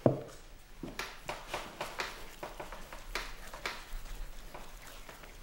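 Hands slapping and patting the walls of a thick hand-built clay pot: one heavy thump at the start, then a run of irregular slaps.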